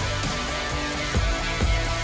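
Background music with guitar over a steady beat, about two beats a second.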